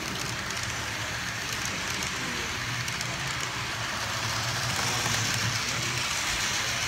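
H0 model City Night Line coaches rolling past on Märklin model railway track: a steady rumble with a hiss of wheels on rails. It grows a little louder about five seconds in.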